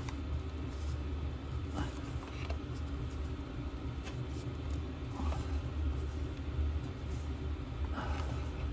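Steady low rumble of a diesel space heater running, with a few faint clicks from a tool being worked on the oil filter cover.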